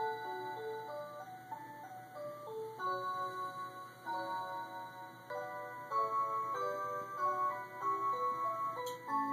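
Rhythm Nostalgia Legend musical motion wall clock playing one of its hourly melodies: a tune of clear, chime-like electronic notes, some sounding together as chords. A single faint click comes near the end.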